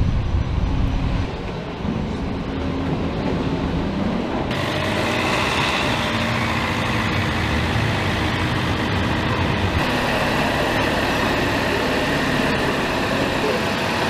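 Heavy military truck's engine running as it drives down a ship's vehicle ramp, a steady mechanical drone with a low hum. The sound changes abruptly several times, where shots are cut together.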